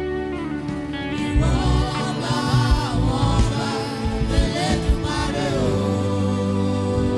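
Gospel music: a sung melody over sustained instrumental backing.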